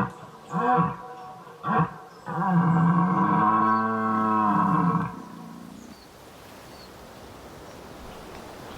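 Red deer stag roaring in the autumn rut: two short grunts, then one long roar that rises and falls in pitch, after which only a faint background remains.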